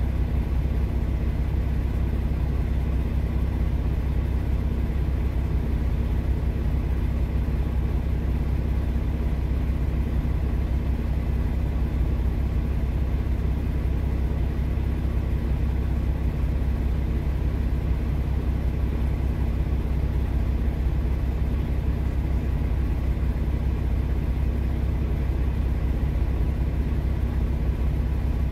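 Steady low rumble of a semi-truck's diesel engine idling, heard from inside the cab while it stands still in traffic.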